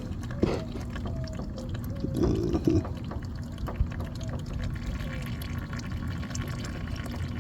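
Used engine oil draining from the riding mower's engine into a pan, a steady pouring trickle.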